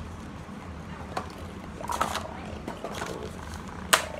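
Doll-clothing packaging of plastic and cardboard being handled, rustling and clicking, with a louder rustle about two seconds in and a sharp click near the end. A low steady hum runs underneath.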